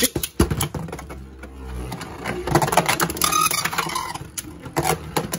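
A Beyblade is ripped off a ripcord launcher into a plastic stadium at the start, then two Beyblade spinning tops, a bootleg Xiphoid Xcalibur and a Hasbro Fierce Achilles, whir and clash against each other and the stadium walls, with sharp clacks and a stretch of rapid rattling collisions around the middle.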